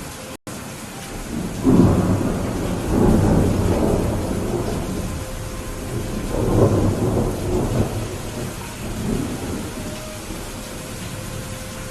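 Steady rain with rolling thunder: a loud rumble breaks in about a second and a half in, and further rumbles swell and fade through the rest. A split-second dropout in the audio just after the start.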